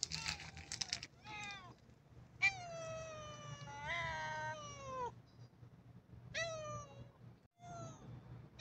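Black cat meowing repeatedly: a crackly meow at the start, then short meows and one long drawn-out meow of over two seconds whose pitch wavers and drops at the end.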